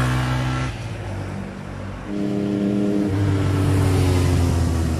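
Motorcycle engines passing one after another on a curve: one fades away about a second in, then another grows louder from about two seconds in, holding a steady note.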